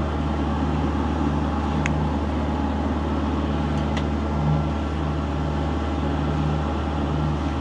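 Yanmar 4JHE four-cylinder marine diesel of a sailboat running steadily at low revs in reverse gear, a constant low drone. Two faint short clicks, about two and four seconds in.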